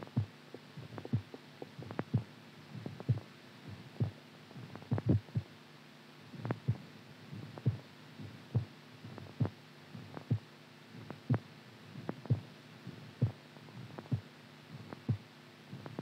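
Heartbeat with an irregular rhythm, the sign of an arrhythmia: low thumps, many in close pairs, come about once a second but unevenly spaced, bunching up around the middle. A steady low hum lies underneath.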